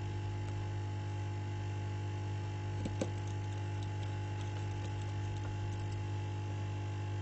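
Steady electrical mains hum, with a couple of small sharp clicks about three seconds in and a few faint ticks after. The clicks come from a small screwdriver and screws as the bottom screws of an iPhone 7 Plus are put back in.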